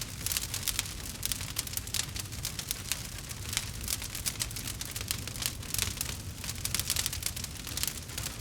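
Wood fire crackling: a dense, irregular run of sharp pops and snaps over a low steady rumble of burning.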